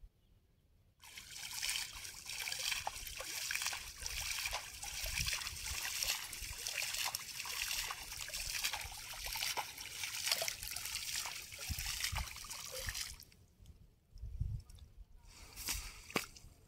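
Water splashing and trickling, a busy run of small splashes that starts about a second in and stops suddenly after about twelve seconds, followed by two brief splashes near the end.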